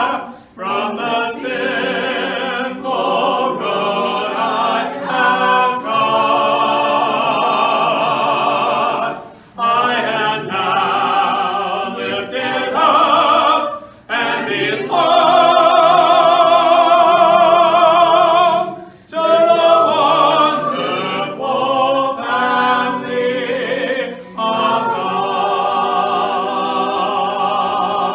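Unaccompanied voices singing a hymn together in phrases a few seconds long, with short breaks between lines and a wavering vibrato on the held notes.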